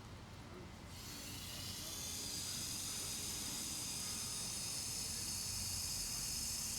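Steady hiss of water rushing through the valve and pipe as the supply is turned back on, starting about a second in. The repaired line is filling and coming up to pressure.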